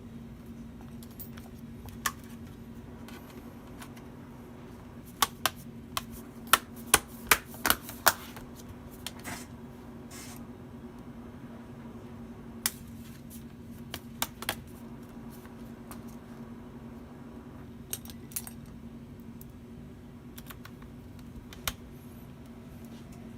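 Scattered sharp clicks and taps of small tools and parts being handled during a laptop battery replacement, with a quick run of clicks between about five and eight seconds in, over a steady low hum.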